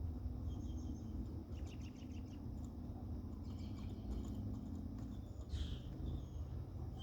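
Faint, short bird chirps in several small runs over a low steady background hum.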